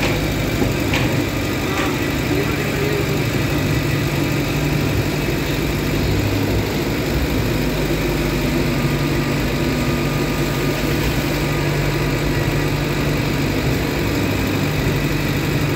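Tata 70Ex excavator's diesel engine running steadily, heard from inside the operator's cab while the machine works.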